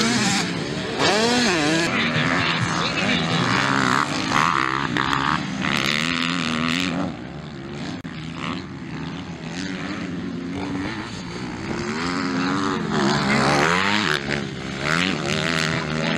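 Motocross dirt bike engines revving hard, their pitch rising and falling again and again as the throttle is worked. A slightly quieter stretch comes about halfway through, then the revving builds again.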